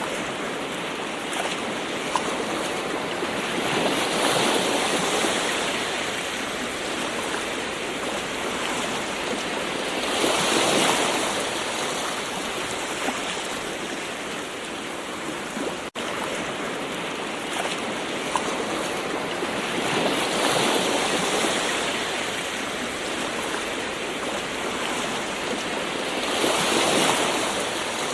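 Gentle ocean waves washing in, a steady hiss of water that swells and falls back four times. The sound cuts out for an instant about halfway through.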